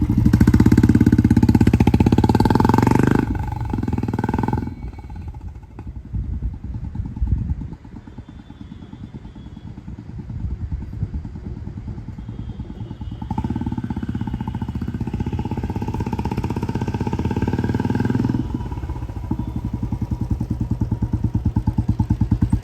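Royal Enfield Bullet's single-cylinder engine through a 3-jali HKK Indori aftermarket silencer, ridden for a sound test. It runs loud at first, then much quieter for several seconds, then louder again. Near the end it settles into evenly spaced thumps.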